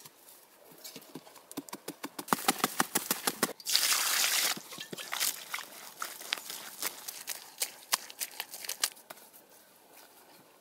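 Hand work in soil: a run of quick knocks and scrapes of a tool or hands working dirt and wet mud, with a short rushing noise about four seconds in, like soil or water being poured, then scattered knocks.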